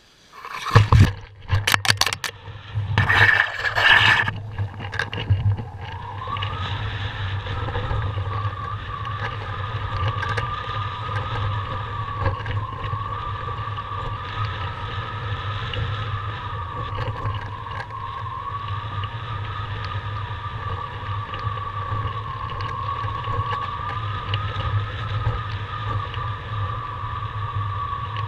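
Chasecam scraping and knocking through grass as it is jerked off the ground at a paraglider launch, with several loud bursts in the first few seconds. From about six seconds in, a steady rush of flight wind over the camera's microphone, with a whistling tone that slowly wavers in pitch.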